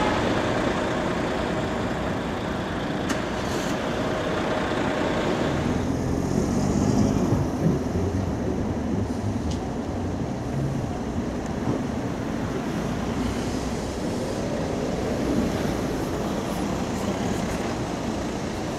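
Bus-station traffic: coach and car engines running and passing in a steady rumble, louder for a moment about seven seconds in.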